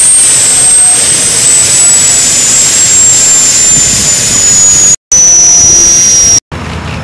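A light-modified pulling tractor's engine running loud while it waits at the line, with a high whine that slowly falls in pitch. The sound cuts out twice near the end and is much quieter after the second cut.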